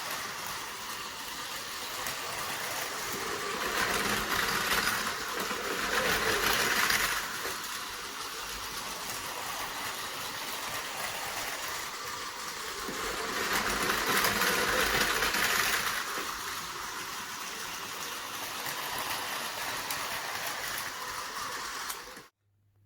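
Battery-powered Tomy Plarail toy trains running on plastic track: a steady motor-and-gear whir with wheels rattling on the track. It grows louder twice as a train passes close, then cuts off near the end.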